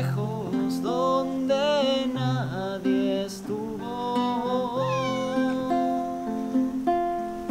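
Nylon-string classical guitar strummed in a steady rhythm, with a cat meowing several times over it.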